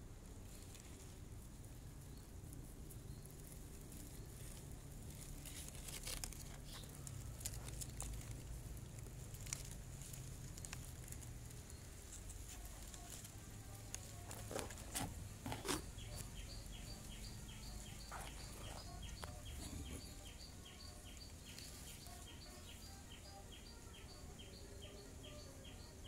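Quiet outdoor ambience with a low rumble of wind on the microphone and a few rustles and knocks around the middle. From a little past halfway, a high, thin chirp repeats evenly about twice a second.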